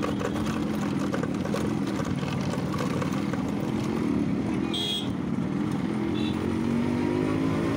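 1992 Yamaha RX100's 98 cc two-stroke single-cylinder engine running as the bike rides off at low speed, its pitch rising near the end as it accelerates. A short high beep about five seconds in.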